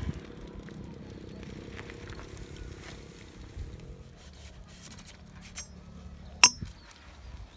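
Mountain bike being handled and walked, with faint scattered ticks and scrapes over a low steady background and one sharp click about six and a half seconds in.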